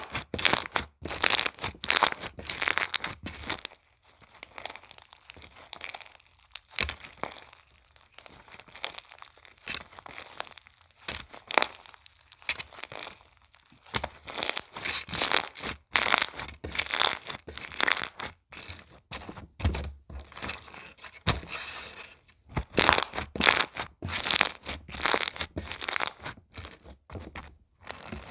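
Slime being squeezed, stretched and folded by hand, with dense crackling and popping. The crackles come in bursts, sparser in the first half and thicker from about halfway in.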